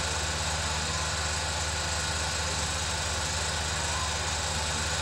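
8mm film projector running: a steady mechanical whir with a fast, even flutter of the film-advance mechanism and a low hum underneath.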